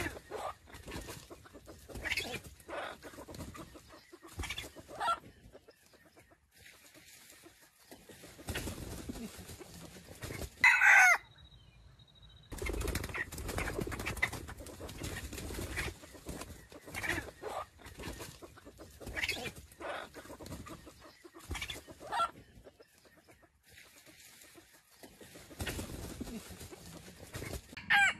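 Red junglefowl rooster clucking in short calls again and again, with one loud short crow about eleven seconds in.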